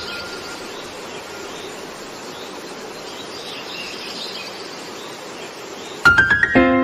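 Ambient intro of a background music track: a steady hiss-like nature bed with faint bird-like chirps. About six seconds in, a quick rising run of notes starts the music.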